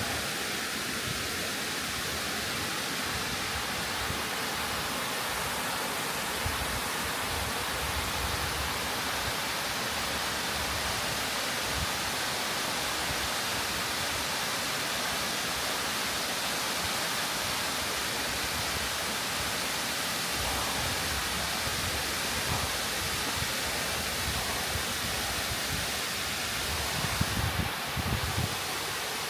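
Kiyotaki waterfall pouring down, a steady, full roar of falling water. A few brief low bumps come near the end.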